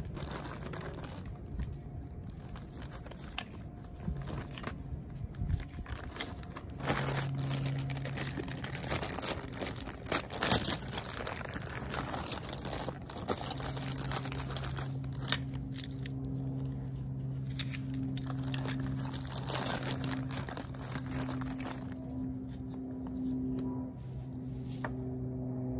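Clear plastic bags crinkling and rustling as dent repair kit parts are unwrapped, with sharp clicks and light knocks as the plastic pieces are handled. A low steady hum runs underneath from about a quarter of the way in.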